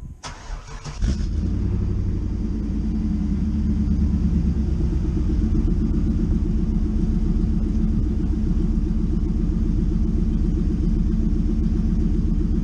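1995 Chevrolet Camaro Z28's LT1 V8, breathing through a Magnaflow cat-back exhaust, is cranked and fires about a second in, then idles steadily.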